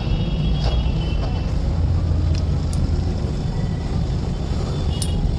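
Steady low rumble of a vehicle engine running nearby, with a few light metallic clicks as the gearbox parts are handled.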